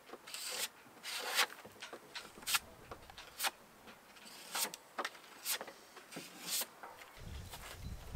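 Filler knife scraping two-pack wood filler over a wooden boat hull in short strokes, about one a second. A low rumble comes in near the end.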